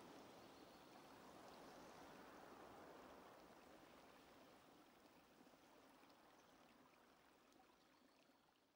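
Near silence: faint, steady hiss that slowly fades out.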